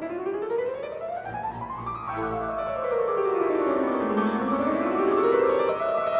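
Background classical piano music: fast runs of notes climb for about two seconds, run back down, climb again, and settle on a held note near the end.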